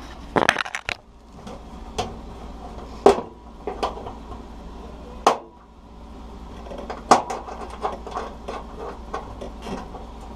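Irregular sharp metallic clicks and knocks from channel-lock pliers and a squeeze-fit switch being worked out through a range hood's sheet-metal panel. The loudest strikes come about three, five and seven seconds in.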